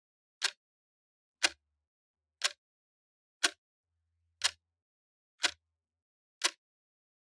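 A clock ticking steadily, one sharp tick a second, seven ticks in all.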